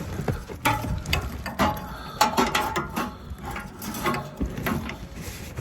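Irregular clicking and rattling of hand tools being worked, with a few sharp knocks and short metallic rings.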